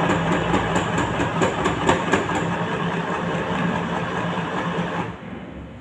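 Sewing machine running a seam at a steady, unhurried speed: a fast, even clatter of the needle over a steady motor hum, stopping about five seconds in.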